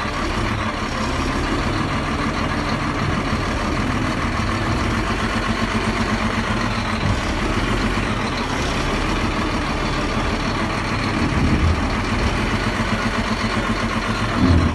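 Diesel engine of a Terex TA400 articulated dump truck running steadily at low speed as the truck creeps forward, with two brief louder swells near the end.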